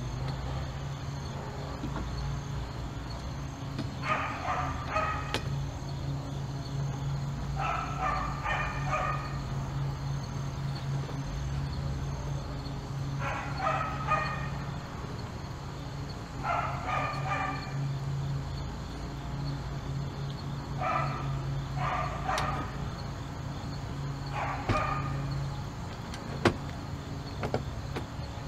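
A dog barking in short runs of two to four barks, repeating every few seconds over a steady low hum. One sharp click near the end.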